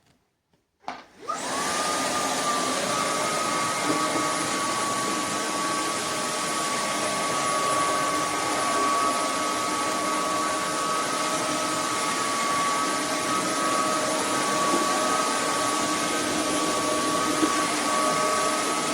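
roborock F25 wet-dry vacuum in its self-cleaning cycle: the suction motor and roller start up about a second in, then run steadily with a constant high whine.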